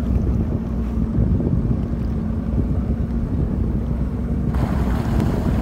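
Wind buffeting the microphone over the steady running of a small boat's engine on open sea. About four and a half seconds in, a brighter hiss rises over the rumble.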